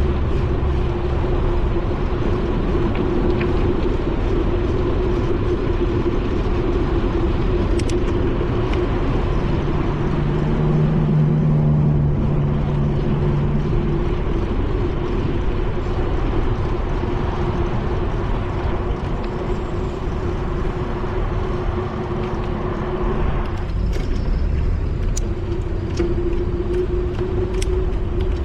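Steady rush of wind and tyre noise on a GoPro carried on a moving bicycle, with a constant low hum. A louder low hum swells about eleven seconds in, and a few sharp clicks come near the end.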